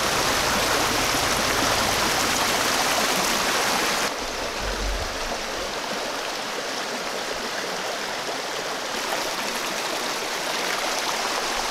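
Rushing water of a small, rocky mountain stream, a steady rush that drops abruptly to a softer flow about four seconds in.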